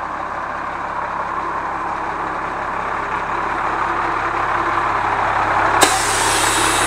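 Cummins 8.3 six-cylinder diesel idling while the onboard air compressor builds pressure; near the end, the Bendix air dryer's purge valve blows off with a sudden loud hiss of air. The purge at about 120 psi cut-out shows the replacement purge valve is working.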